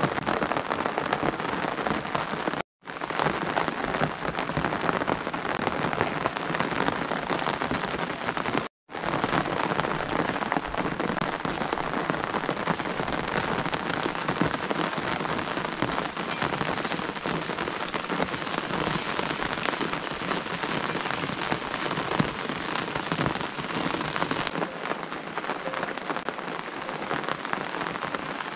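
Steady rain falling, a dense, even patter, cutting out completely for a moment twice.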